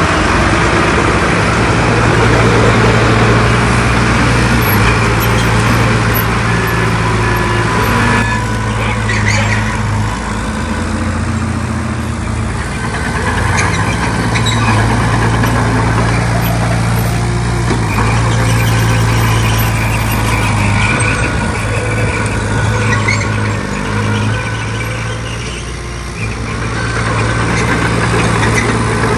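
Heavy diesel engines of earthmoving machines running, a steady engine note that rises and eases with the load, with a few short clanks.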